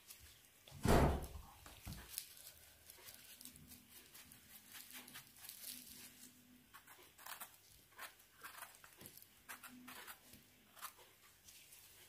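Scattered rustling and crackling of forest-floor litter as mushrooms are picked and handled, with one loud, low thump about a second in.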